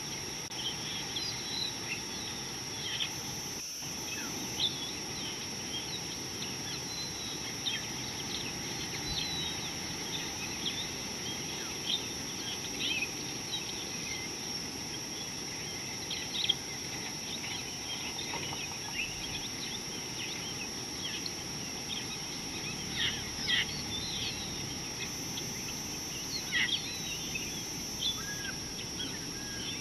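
Natural bush ambience: many short bird chirps and calls over a steady high-pitched insect drone and a low background hiss.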